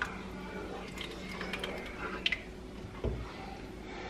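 A wooden spoon scraping tomato paste out of a tin can and stirring it into thick sauce in a pot, giving faint scrapes and a few light taps, with one sharper tick about two seconds in, over a low steady hum.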